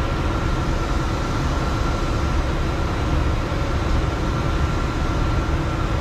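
Steady low mechanical rumble with a faint, even whine held above it, unchanging throughout.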